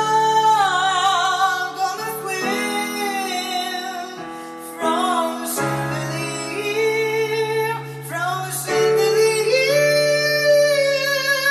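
A man singing long, high held notes with vibrato, over sustained chords played on a keyboard; the chords change every few seconds.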